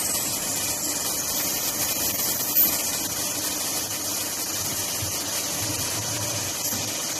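A 4-axis CNC duct-panel cutting machine running, with a steady hiss over a low hum. There is a brief sharper sound about two and a half seconds in.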